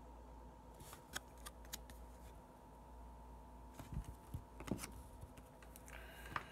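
Faint handling of hockey trading cards: scattered light clicks and rustles as the cards are slid and flicked through the hands, over a low steady hum.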